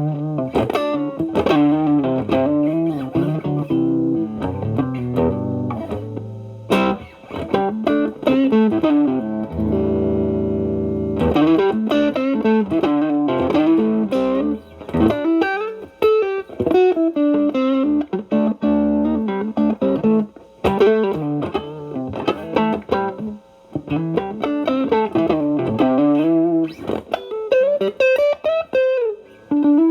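Fender Stratocaster played through an Xotic BB Plus preamp pedal into a Marshall Valvestate amp: improvised blues-style single-note licks and chords with a lightly driven, cleaned-up tone. A chord rings out about ten seconds in, then playing resumes with the pedal's B channel gain turned down to 2.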